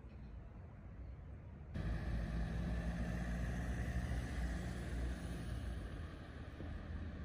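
Low, faint street rumble, then, after a sudden cut about two seconds in, a car driving past close by, easing off toward the end.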